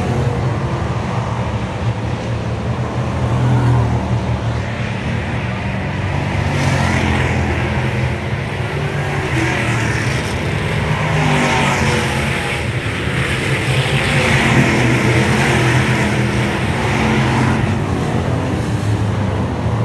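Thunder Bomber stock car engine running hard on track: a steady low drone, with a higher rushing noise that swells and fades several times.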